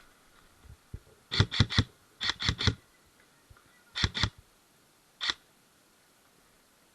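Airsoft gun firing in quick semi-automatic shots: three rapid shots, three more, then two, then a single shot, each a sharp snap.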